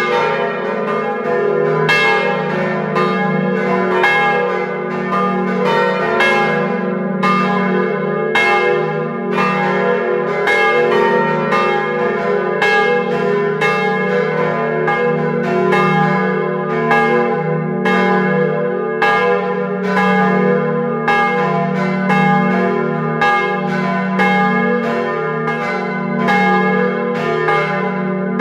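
The Dom Tower's five swinging bronze church bells (Agnes minor, Kruisklok, Benignus, Adrianus and Jezus Maria Johannes) pealing together, heard close up in the bell chamber. Clapper strikes from the different bells overlap irregularly, more than one a second, each leaving a long ringing tone over a steady low hum.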